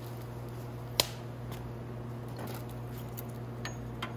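Small clicks and handling noises from Nibbi race carburetor parts (the slide and top) being handled, with one sharp click about a second in, over a steady low background hum.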